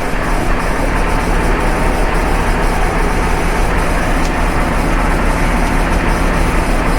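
A steady low mechanical drone with a constant hum, like a motor running without change.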